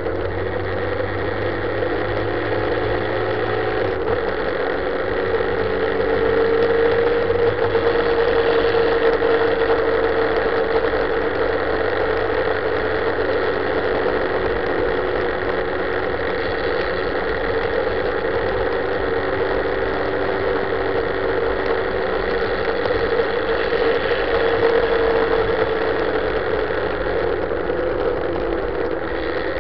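Sport motorcycle engine pulling at mid revs through a series of bends, its pitch rising gently about a quarter of the way in, easing off, rising again near the end and dropping just before it stops, over steady wind rush.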